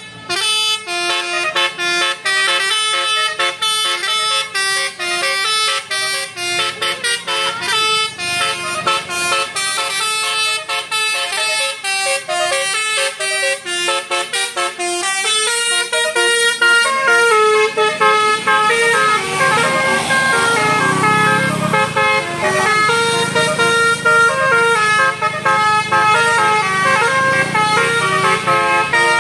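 A bus's Basuri multi-tone telolet horn playing fast melodies of short notes that jump in pitch several times a second. About two-thirds in, the notes are held longer over a low engine rumble.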